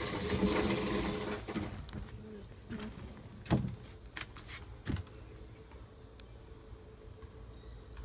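Rustling and handling noise close to the microphone as a hand works through synthetic crochet braid hair, fading after the first couple of seconds, then a few sharp knocks about halfway through. A steady high-pitched whine runs underneath.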